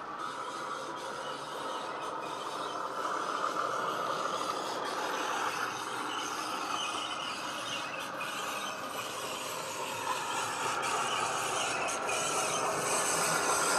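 Model Hornby Class 31 diesel locomotive's DCC sound decoder playing its diesel engine sound through a small onboard speaker, mixed with the running noise of the model on its track, growing louder as the locomotive approaches.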